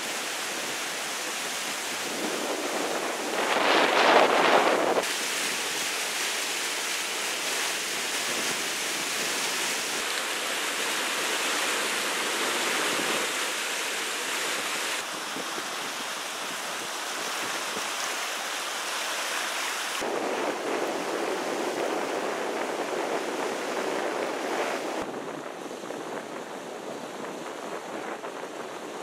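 Fast-flowing floodwater rushing and splashing where it breaks over a bridge pier, a steady churning noise that surges louder about four seconds in. The sound changes abruptly every few seconds as short clips are cut together.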